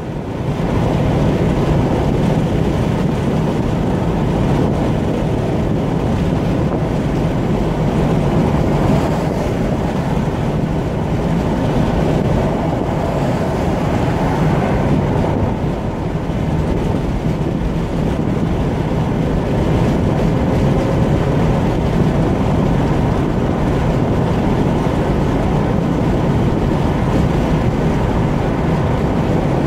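Steady road and engine noise of a car cruising on a motorway, heard from inside the cabin: a constant low rumble of tyres on asphalt with wind noise.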